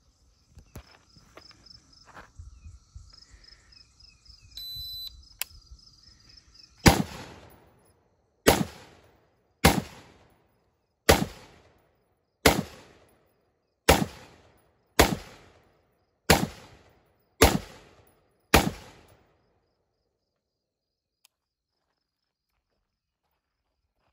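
A shot-timer start beep, then ten single shots from a Troy P7A1 AR-15 pistol in 5.56, fired at a slow steady pace of about one every second and a bit, each a sharp crack with a short fading tail. Insects buzz steadily before the shooting starts.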